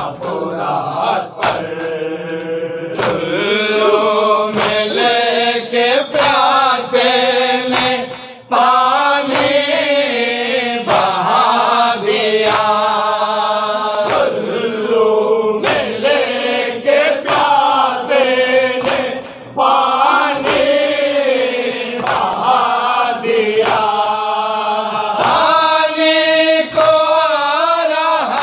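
A group of men chanting an Urdu noha (Shia mourning lament) in unison into a microphone, in long held lines, with regular beats about once a second that fit chest-beating (matam) keeping time.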